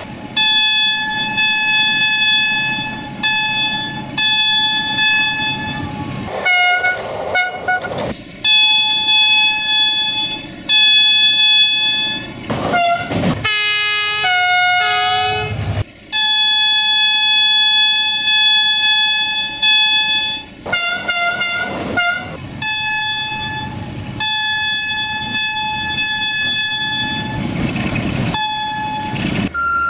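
A string of locomotive air-horn blasts, several different horns in turn: long held chords broken by short toots, over the low rumble of the trains. About halfway through, one horn's pitch falls as it passes.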